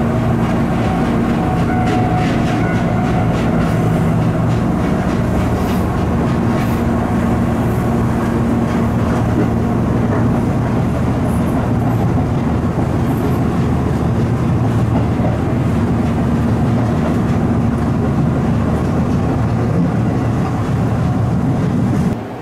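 Electric train of the Tobu Sano Line running on the rails, heard from inside the front of the train: a steady rumble of wheels on track under a low motor hum, with a few faint clicks of wheels over rail joints in the first half.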